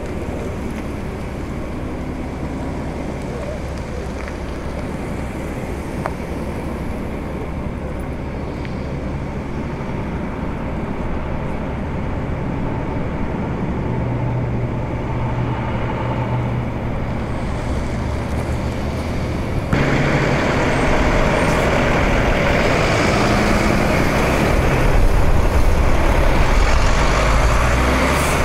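Heavy tow trucks' engines rumbling as they drive slowly past in a line. The sound steps up suddenly about two-thirds of the way through and is loudest near the end, as a flatbed tow truck passes close by.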